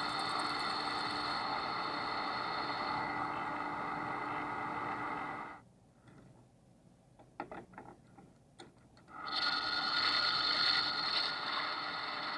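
Manual metalworking machine tool running with a steady whine of several tones. It stops about five and a half seconds in, a few light clicks sound in the near-quiet gap, and the running sound returns about three and a half seconds later.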